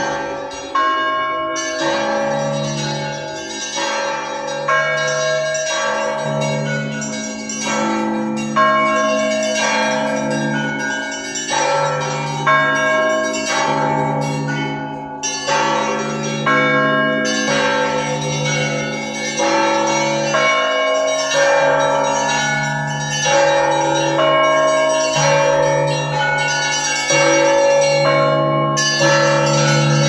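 Russian Orthodox church bells rung in a zvon: several bells of different pitches struck over and over in a steady pattern, each ringing on. A deep bell pulses steadily beneath quicker strokes on the higher bells.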